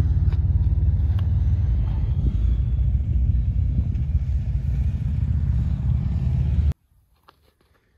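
Wind buffeting the microphone: a loud, steady low rumble that cuts off suddenly near the end.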